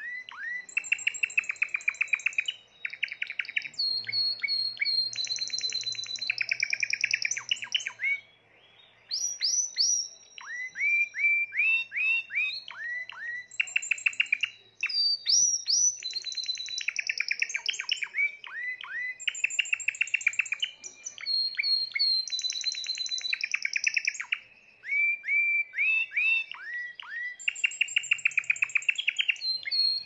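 Spanish Timbrado canary singing a long song of fast rattling trills and downward-sliding notes, with a held high note running under parts of it. The song breaks off briefly a few times.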